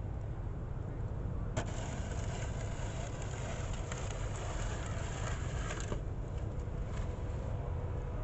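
Plastic snow shovel scraping snow along a concrete sidewalk, starting sharply about a second and a half in and stopping about six seconds in, with a few shorter scrapes later, over a steady low rumble.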